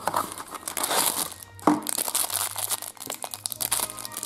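Plastic toy wrapper being crinkled and torn open by hand, with one sharp snap about a second and a half in, over background music.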